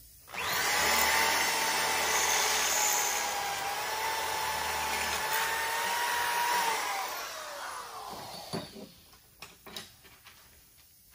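Handheld electric drill running steadily with a high whine for about six and a half seconds, re-drilling a bolt hole through a rake handle. It then winds down with falling pitch, followed by a few short knocks.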